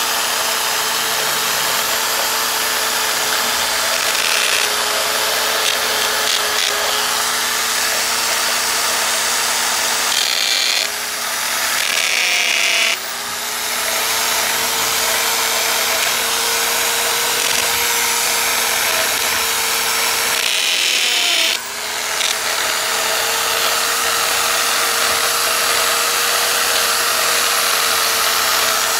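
Handheld power drill with a masonry bit running steadily against hard stabilized compressed earth block, a steady motor whine over grinding, to cut a recess for an electrical box. It lets up briefly twice, about ten and twenty-one seconds in, then bites again.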